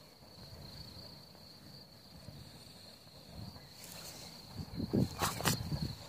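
An insect's thin, steady high-pitched trill in the open grass, stronger from about four seconds in. Near the end, a short run of loud footsteps and rustling through the grass.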